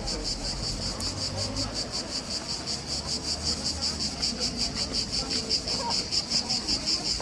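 Chorus of insects, crickets or cicadas, chirping in a fast even pulse of about five chirps a second, a little louder in the second half.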